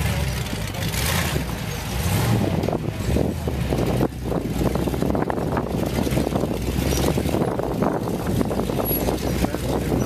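Ultra4 rock-racing buggy's engine running at low revs as it crawls up a boulder-strewn trail, with a brief dip about four seconds in.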